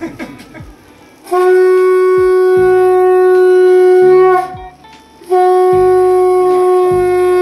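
Conch shell (shankha) blown in two long, steady blasts of about three seconds each, with a short break between them; the second begins about five seconds in.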